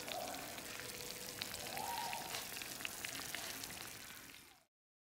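Freshly baked lasagna's melted cheese topping sizzling: a steady crackling hiss with many small pops, stopping abruptly near the end.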